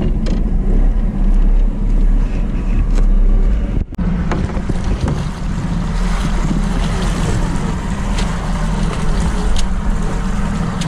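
A small boat's motor running steadily, with wind noise on the microphone. The sound breaks off briefly about four seconds in, then carries on.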